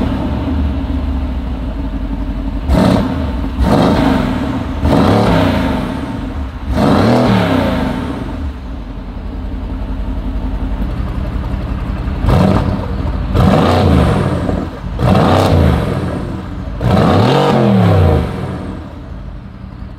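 Mercedes-AMG GT R's twin-turbo V8, with catless downpipes and a valved aftermarket exhaust, idling and revved in about nine short blips, the revs rising and dropping back each time. There is a steady stretch of idle in the middle.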